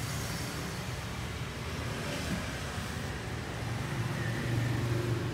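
Low, steady rumble of engines in road traffic, growing a little louder about four seconds in.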